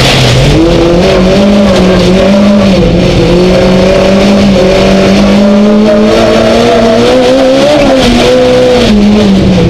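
Skoda Fabia Super1600 rallycross car's 1.6-litre four-cylinder engine at high revs, heard from inside the cockpit. The pitch climbs about half a second in, holds high with small dips, and drops back near the end.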